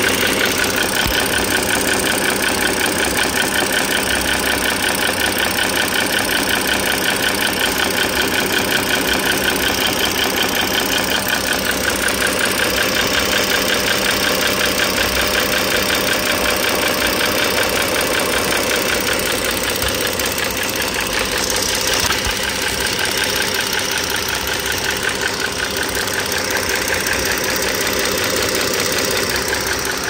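A 2009 Dodge Journey SXT's 3.5-litre V6 idling, heard up close, with a fast, steady clicking, tapping noise. The owner takes it for the rocker arm assemblies: a sheared pin lets the rocker shafts shift, so the rocker arms no longer get enough oil.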